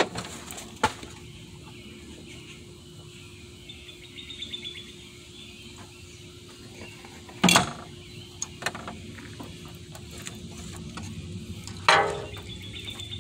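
A few sharp metallic knocks and clanks as a stuck water pump is worked at to free it from the engine. The loudest come about seven and a half seconds in and near the end, the last with a brief ring. A faint steady hum runs underneath.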